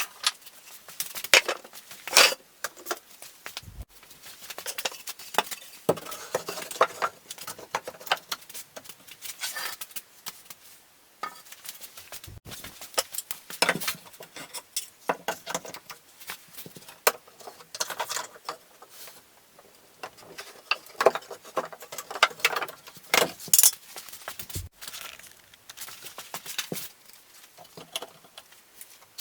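Irregular clicks, light knocks and clatter of hand work with tools, wood and hardware at a workbench, broken by a few sudden cuts.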